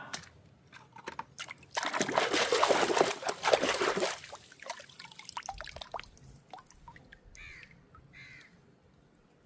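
Water trickling and splashing as toy vehicles are washed: a burst of splashing for about two seconds, then scattered drips and small splashes that fade away.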